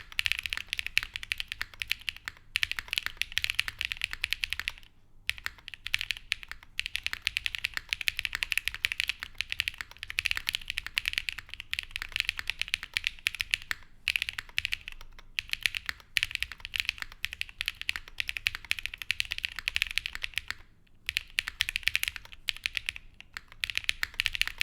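Continuous fast typing on a custom mechanical keyboard with lubed Geon Black switches on an aluminium half plate and GMK keycaps, a dense run of keystrokes broken by a few short pauses.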